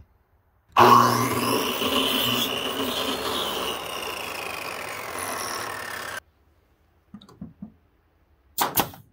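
Electric compound miter saw running and cutting through a pallet board, starting about a second in and stopping abruptly at about six seconds. Near the end a pneumatic brad nailer fires with a sharp snap.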